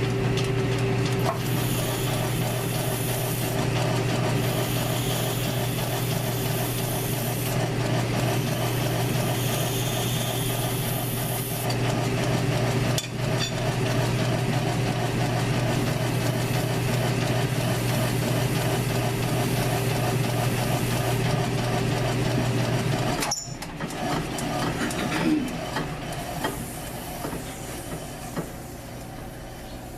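South Bend lathe running steadily while a Razor scooter wheel is turned, with three stretches of hissing cutting in the first dozen seconds. About 23 seconds in the lathe is switched off and winds down.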